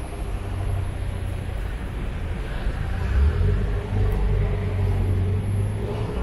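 Road traffic on a city street: car engines running past with a steady low rumble that swells briefly about three seconds in.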